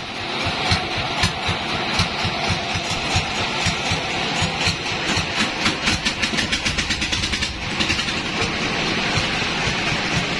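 Band sawmill machinery running steadily, a motor with a fast, even low throb. A rapid ticking clatter runs over it through the middle stretch.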